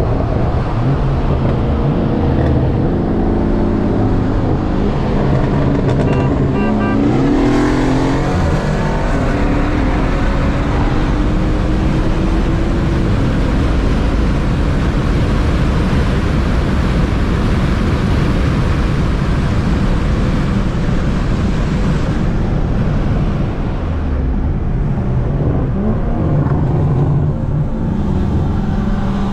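Car engine running hard while driving, its pitch climbing and dropping several times as it accelerates and shifts, over heavy road and wind noise.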